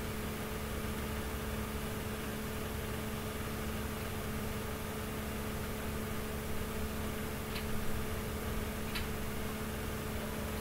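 Steady electrical hum with two steady tones over a background hiss. Near the end come two faint clicks, fitting presses on the servo drive's keypad buttons.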